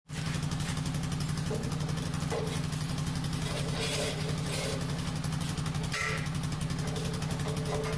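Portable bandsaw mill's gasoline engine running at a steady speed with an even, rapid firing beat, starting abruptly and holding level throughout.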